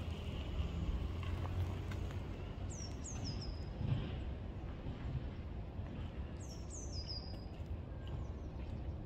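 Outdoor ambience with a steady low rumble. Twice a small bird gives a quick run of about three high, thin notes, each falling in pitch, about three seconds in and again about six and a half seconds in.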